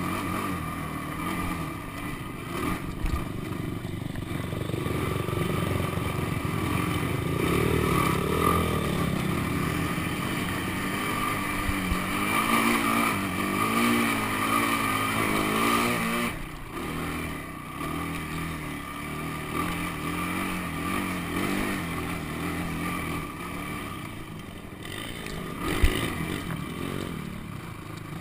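Honda sport ATV engine running and revving while being ridden over sand dunes, its pitch rising and falling with the throttle and easing off about sixteen seconds in. A single sharp thump about two seconds before the end.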